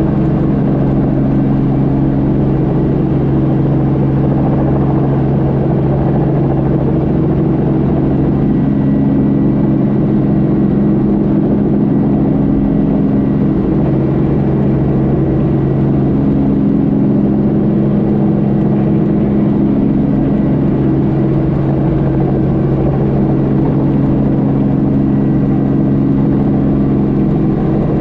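Light helicopter's engine and main rotor running steadily at hover power while it hover-taxis low over the airfield, heard from inside the cabin as an even, loud drone with no change in pitch.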